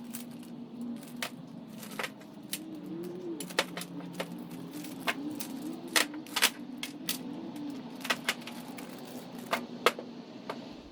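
Small metal engine parts clinking and tapping as they are handled, in irregular sharp clicks over a steady low hum.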